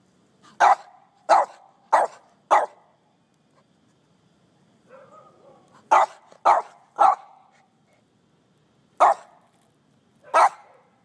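Small dog barking in short, sharp single barks. First comes a run of four, then three in quick succession, then two more spaced out near the end. It is barking at ants in the lawn.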